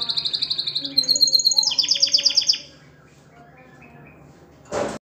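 Male domestic canary singing: fast trills of rapidly repeated high notes, switching to a new trill about a second in and stopping about two and a half seconds in. A short burst of noise comes near the end.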